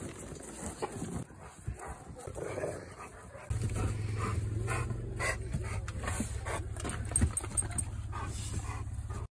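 Rottweilers playing together in snow, panting, with a few short dog vocal sounds. A steady low rumble comes in about three and a half seconds in and stops suddenly near the end.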